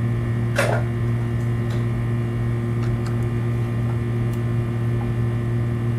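Steady electric hum of an industrial sewing machine's table motor running idle, with a short knock about half a second in as the machine head is handled.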